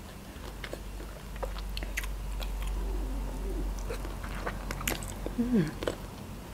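Close-miked eating sounds: a person biting and chewing a cooked prawn dipped in sauce, with many short wet clicks and smacks. Two brief hums come about halfway through and again near the end.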